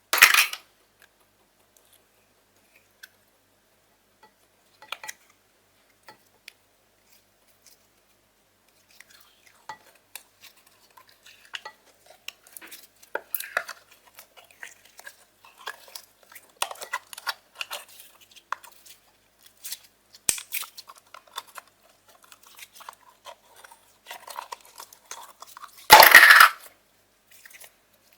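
Store-bought slime and its plastic tubs being handled: a few scattered clicks and taps, then a long stretch of dense, crackly clicking as the slime is worked, with one loud brief burst near the end.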